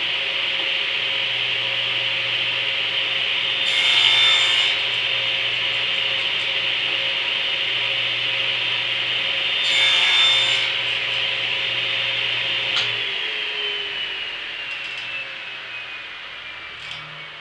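Table saw running steadily and crosscutting two short pieces of 2x3 stud, each cut a brief louder burst, about four and ten seconds in. About thirteen seconds in, the saw is switched off with a click and its whine falls steadily as the blade winds down.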